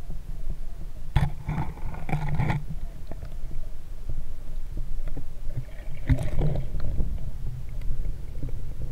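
Kayak paddling: two bouts of paddle strokes, a little over a second in and again about six seconds in, each with a knock on the hull and water splashing and dripping. A steady low rumble runs underneath.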